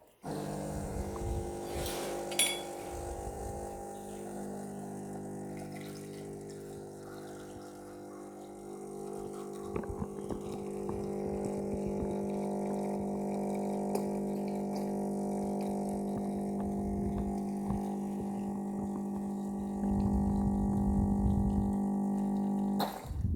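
Espresso machine's pump humming steadily as it pushes water through the coffee during a shot, starting and stopping abruptly; it grows louder with a deeper rumble near the end.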